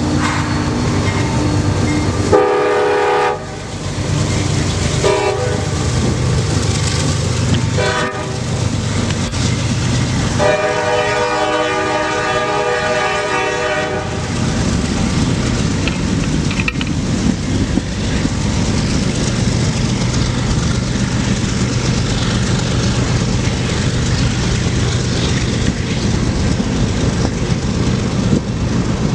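CSX freight locomotive's horn sounding several blasts, the last one long, followed by the steady rumble and clickety-clack of the manifest train's cars rolling past.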